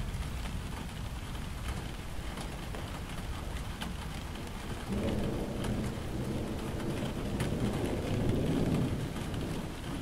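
Steady rain falling, with scattered drops ticking close by. About halfway through a low rumble of thunder swells up and dies away near the end.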